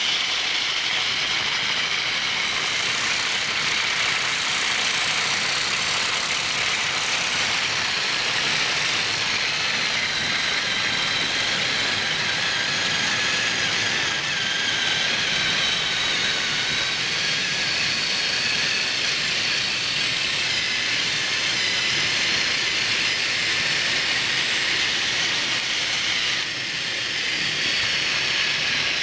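Motorized Thomas & Friends toy trains running on plastic track: a steady high whir of small battery-powered motors and gears, with the rolling of their wagons and coaches.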